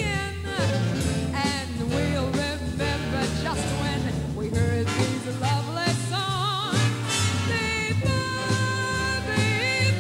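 A female singer with a big band, her voice bending between notes and holding some with wide vibrato over a swinging brass, reed and rhythm section accompaniment.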